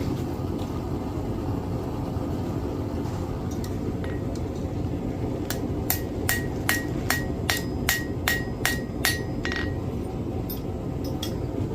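Hammer tapping a small forged iron piece on an anvil to clean it up: a run of about eleven evenly spaced ringing strikes, roughly two or three a second, starting about halfway in, then a few lighter taps near the end, over a steady low hum.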